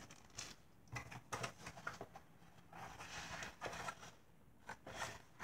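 Faint rustling of a small plastic bag and light taps and scrapes as a cardboard kit box is handled on a table, in short scattered bits.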